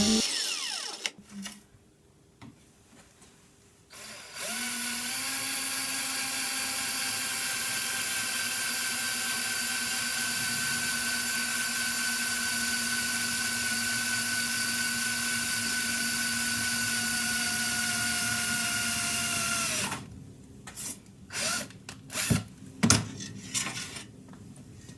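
An electric power tool starts about four seconds in and runs at a steady pitch for about fifteen seconds, then stops and spins down. Several light knocks follow.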